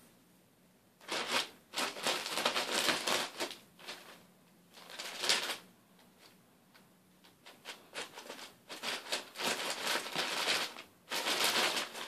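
Paper bag rustling and crinkling in repeated bursts of a second or more, with short pauses between, as a cat pushes its head into it and moves around inside.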